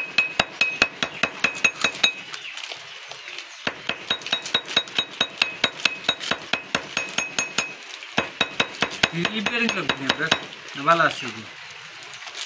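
Steel blade tapped with a small hammer to cut a cardboard gasket: quick light metallic taps, about four or five a second, each with a short ring, easing off briefly twice.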